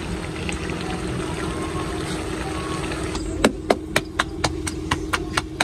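A steady hiss with a low hum cuts off about three seconds in. Quick, even taps follow, about four a second.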